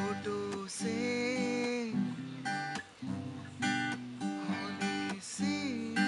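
Two acoustic guitars strumming chords together, with notes ringing on between the strokes.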